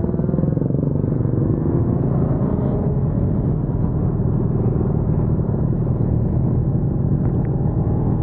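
Motorcycle engines running steadily at low speed: the riding bike's own engine close up, with other motorcycles alongside.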